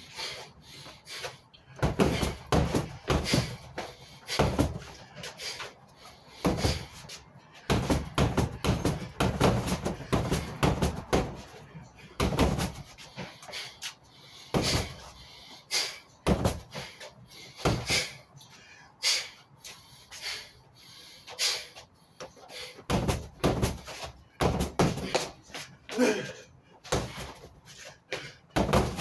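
Strikes landing on a freestanding punching bag in quick combinations: clusters of sharp impacts with short pauses between them.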